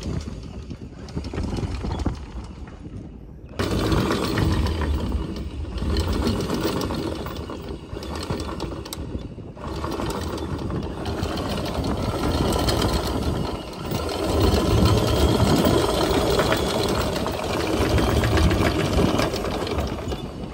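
Electric anchor windlass running and hauling chain, a loud, dense mechanical rattle that starts suddenly about four seconds in. The windlass is working again after a fault that had it letting out chain on its own and then refusing to haul or drop it.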